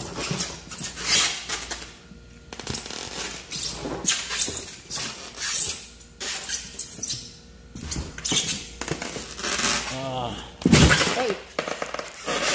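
Rustling, scraping and crackling from a styrofoam cooler box as a live lobster is lifted and handled in it: a run of short, irregular noisy bursts.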